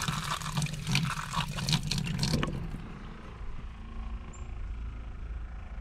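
Water from the faucet splashing steadily into a stainless steel sink, a strong flow fed by a newly replaced RV water pump. The splashing stops about two and a half seconds in, leaving a faint low hum.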